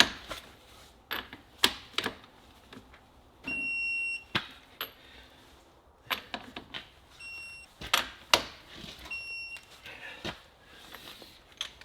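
Wheel-loader lug nuts being torqued to 145 ft-lb: sharp clicks and knocks of the wrench on the nuts, with three high electronic beeps, the first about a second in length and the other two short, the signal of a digital torque wrench reaching the set torque.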